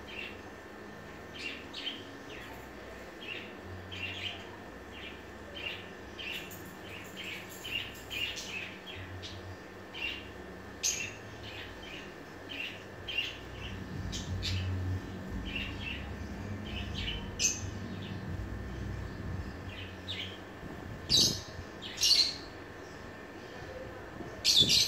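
Birds chirping: a steady run of short, high chirps, with a few louder chirps near the end, over a faint low background rumble.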